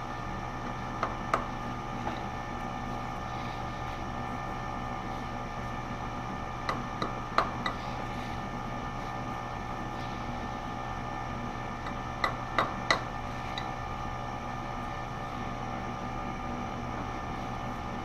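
Light mallet taps on a GM wheel hub held in a lathe chuck, bumping its high spots over to true it against a dial indicator. The taps come in three short groups (two, then four, then three), over a steady shop hum.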